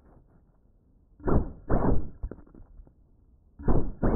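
Cinelog 35 FPV drone's motors and propellers revving in short blips, each winding down in pitch, with the quad lying upside down after a crash. There are two pairs of blips, one about a second in and one near the end.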